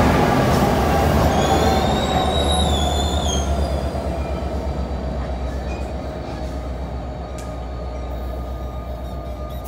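NJ Transit commuter train rolling past and slowing as it pulls into the station. There is a steady low engine hum and wheel rumble, and a high brake squeal about one and a half to three and a half seconds in. The sound fades as the train slows.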